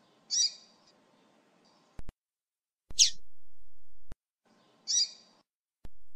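Female double-collared seedeater (coleiro) calling: three short, high chirps about two seconds apart, the middle one a quick downward sweep. It is a female call used to stir a caged male coleiro into song.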